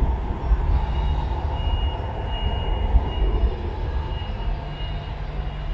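Manchester Metrolink Bombardier M5000 tram pulling away from the platform, a steady low rumble of its running gear on the rails, with a faint high whine that comes and goes.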